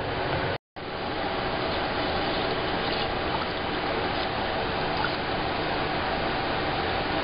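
A steady rushing background noise with a faint hum, broken by a brief dropout about half a second in, while a spoon stirs a thin rice-flour batter in a stainless steel bowl, giving light liquid sloshing.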